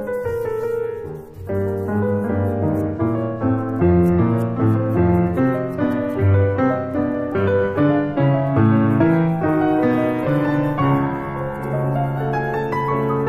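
Slow, gentle solo piano music: a melody over chords, with a brief lull about a second in and longer held notes near the end.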